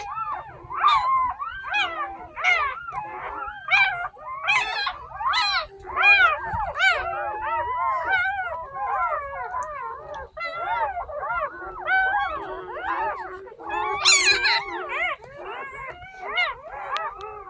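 A litter of day-old puppies crying: many short, high whining squeals that rise and fall in pitch, overlapping almost without a break.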